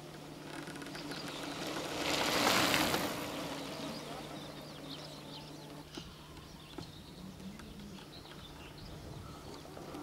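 Outdoor ambience with faint bird chirps over a low steady hum. A rush of noise swells up about two seconds in and fades away a second or two later.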